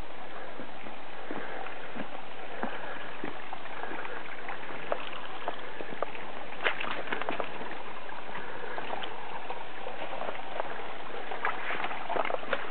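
Footsteps on a rainforest trail, scattered clicks and snaps of leaf litter and twigs underfoot, over a steady even hiss. The clicks come thicker about six seconds in and again near the end.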